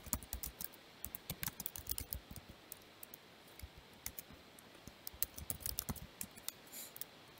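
Typing on a computer keyboard: irregular runs of quick key clicks, with a brief lull near the middle.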